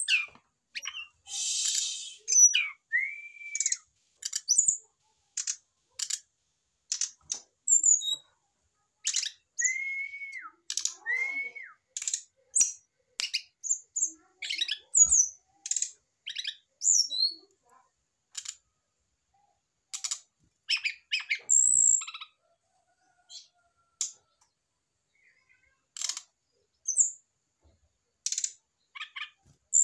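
Brown-chested jungle flycatcher calling: a broken string of short, sharp, high chirps with a few arched whistled notes mixed in. The calls are busy through the first half and come more sparsely later.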